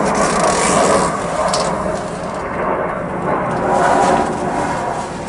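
Paper towel rubbing around the inside of a motorcycle front brake master cylinder's metal reservoir bowl, over a steady noisy background.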